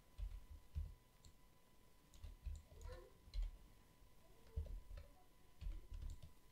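Computer mouse clicking irregularly, with dull low knocks from the mouse and desk.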